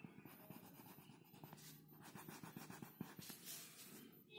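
Faint scratching of a pink marker tip on paper in quick repeated strokes, colouring in a drawn flower petal.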